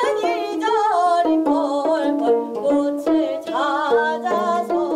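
Women singing a Korean folk song (minyo) with wavering, gliding vocal lines, accompanied by plucked gayageum notes.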